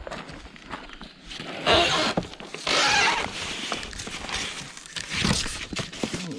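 Rummaging through a builders' skip: rubble and debris clattering and scraping, with two louder rasping scrapes or rustles about two and three seconds in.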